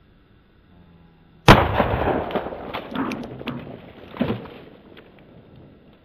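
A Remington Model 12 .22 rimfire pump rifle fires once about a second and a half in, a sharp report followed by a long fading tail with a few smaller sharp sounds, one louder near four seconds in.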